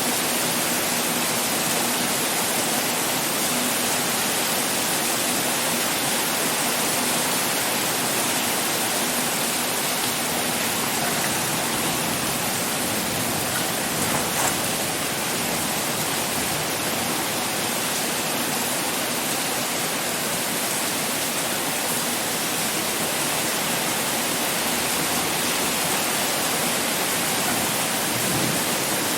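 Heavy pouring rain, a steady even hiss with a slight brief swell about halfway through.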